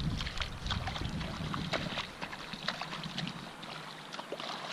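Rain water outdoors: scattered drips and small splashes over a faint steady hiss, with a low rumble of wind on the microphone in the first second.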